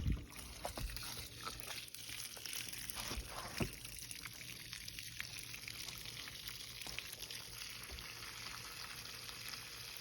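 Water pouring steadily out of a water heater's drain as the tank is flushed of sediment, with a few sharp knocks in the first four seconds.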